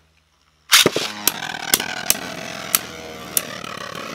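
Beyblade Burst spinning tops, Orpheus O2 and Unicrest U2, in a plastic stadium: a loud hit about a second in as a top is launched in, then a steady whirring of the tops spinning on the plastic floor. Sharp clacks come about every half second as they strike each other, and a whine falls slowly as they lose speed.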